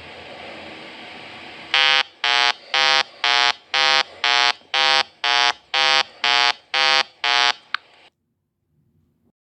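Construction machine running, then its reversing alarm beeping about twice a second, a dozen beeps in a row, before the sound cuts off abruptly.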